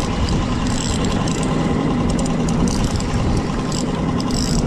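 Small boat's outboard motor running steadily at trolling speed.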